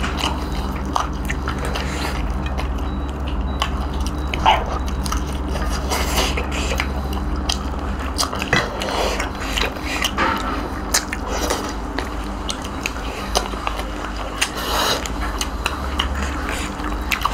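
Two people eating by hand: biting and chewing roast duck on the bone, with scattered short clicks and smacks from fingers working rice on steel plates, over a steady low hum.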